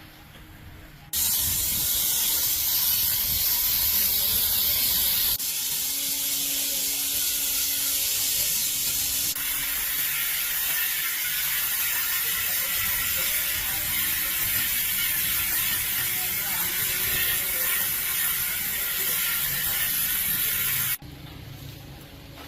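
Loud, steady hiss of a high-pressure spray or air jet, in a few spliced takes that start and stop abruptly.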